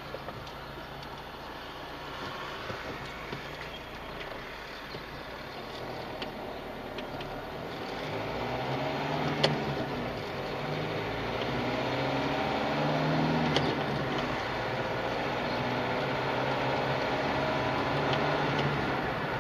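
Car engine and road noise heard from inside the car. It is quiet at first, then from about eight seconds in the engine pitch rises as the car pulls away and accelerates. Two sharp clicks come through partway along.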